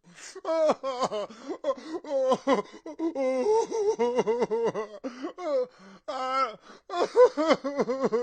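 A man sobbing hard, his voice breaking into rapid, choppy bursts of crying with gasping breaths between them, pausing briefly a few times.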